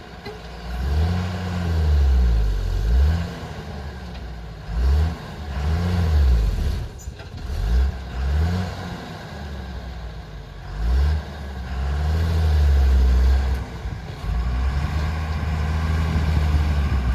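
JCB backhoe loader's diesel engine working under hydraulic load while loading mud, its revs rising and falling again and again, about every one to two seconds, with a longer steady high stretch near the end.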